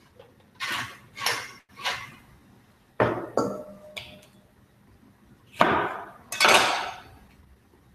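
A hand seasoning grinder twisted over a bowl in three short grinding bursts. Then a knife knocks on a wooden cutting board, with the two loudest strokes near the end as a lemon is cut through.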